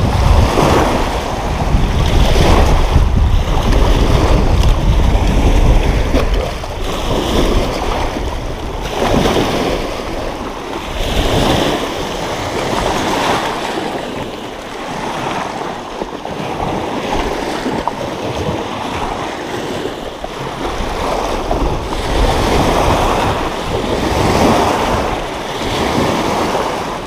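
Wind-driven waves washing and breaking against a rocky lakeshore, surging every second or two. Strong wind buffets the microphone with a heavy low rumble, strongest over the first six seconds or so.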